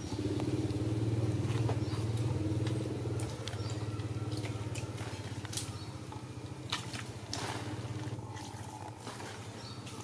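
A steady low engine drone, like a small motor running nearby, easing off a little about three seconds in, with scattered light clicks and rustles over it.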